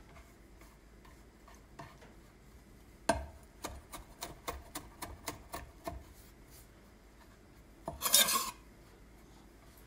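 Chinese cleaver chopping garlic on an end-grain wooden cutting board: one sharp knock about three seconds in, then about a dozen quicker, lighter chops at roughly four a second. Near the end, a short scrape of the blade across the board.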